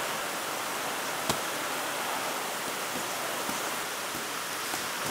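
A steady rushing hiss throughout, with one sharp hit about a second in, a gloved punch landing on a heavy bag, and a few faint taps later.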